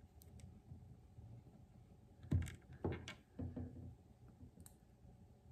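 LEGO bricks being handled and pressed together, with a few soft clicks and knocks against a wooden table about two and a half to three and a half seconds in.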